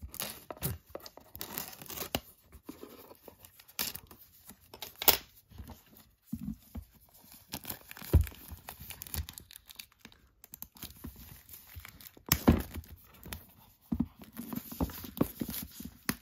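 Packaging being torn open and crumpled by hand: irregular rips and crinkling rustles, with a few sharper, louder tears.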